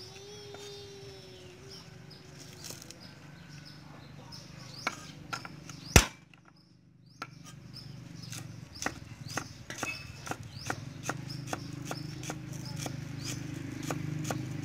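Cleaver chopping green onions on a wooden cutting board: irregular knocks of the blade on the board, coming faster in the second half. A single loud sharp click about six seconds in, then a second of near silence.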